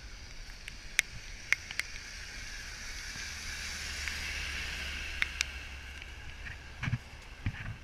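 Traffic on a wet road: tyres hissing on the wet pavement, swelling as a box truck and then a car pass about four to six seconds in, over a low rumble. A few sharp clicks and two dull thumps near the end.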